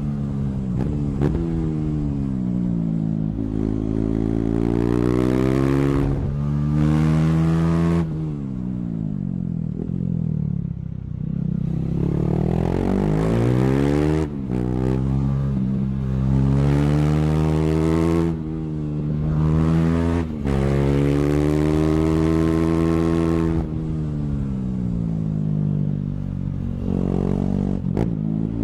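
KTM 390's single-cylinder engine, its exhaust with the dB killer removed, riding hard: the pitch climbs through each gear and drops abruptly at the shifts (around 6, 8, 14, 18 and 20 seconds in), with two spells of the revs falling away as the bike slows.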